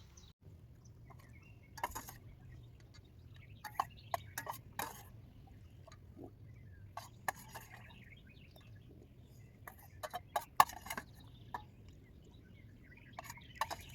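A spoon clicking and scraping against a bowl during a meal: irregular light clicks and taps, the sharpest about ten and a half seconds in.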